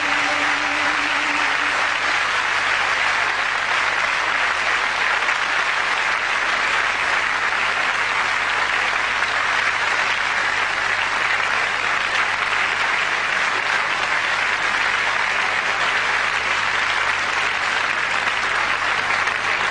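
Large audience applauding steadily, with a last piano note dying away in the first second or two.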